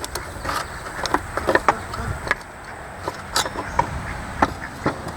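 Chainsaw chain being handled on its bar: irregular light metallic clicks and rattles of the links.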